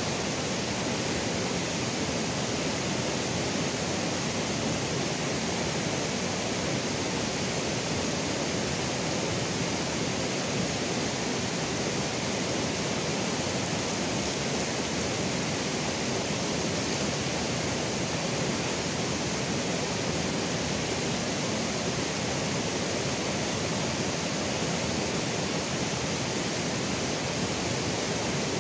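Steady rushing of a shallow river running over rocks, an even noise that does not change.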